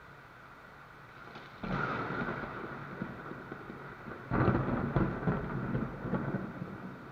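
Thunder during rain: a steady hiss of rain, then two sudden rumbling surges about a second and a half apart, the second louder, each slowly fading.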